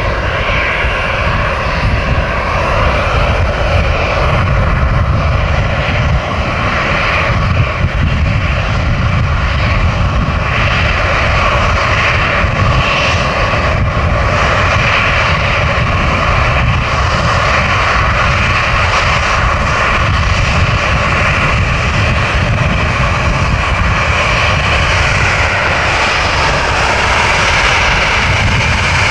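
Airplane engines running at high power for take-off, a loud, steady engine sound that holds throughout.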